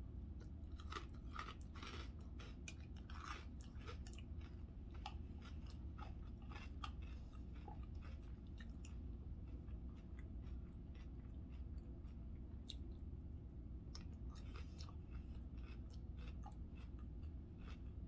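A person chewing and crunching a mouthful of chicken salad, with scattered small crunches that are busiest in the first few seconds and again near the end, over a steady low hum.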